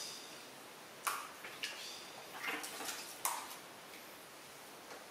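Water sloshing and splashing in a plastic basin as a baby monkey paddles through it: about five short splashes over a couple of seconds.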